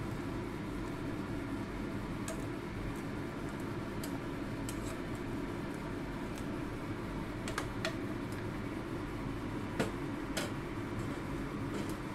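Ceramic spoon clicking against a clay pot a few times as watercress is stirred into simmering soup, over a steady low rumble of kitchen background noise.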